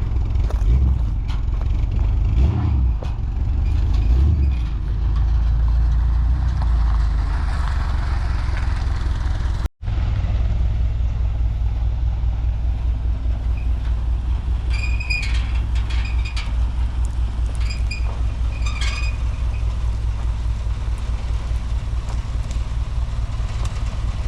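1953 GMC 100 pickup's engine running as the truck is driven, a steady low rumble with an even pulsing beat. The sound cuts out for a moment just under ten seconds in, then the engine carries on the same.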